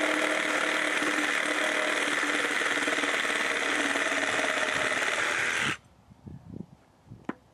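DeWalt 20V XR cordless reciprocating saw running steadily as it cuts through a wooden board, stopping suddenly near the end. A few light knocks follow as the wood is handled.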